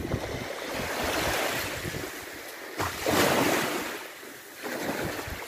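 Small waves of the Caspian Sea washing in over shallow water and a sandy shore. The rush swells and falls back twice, loudest about three seconds in, with wind buffeting the microphone.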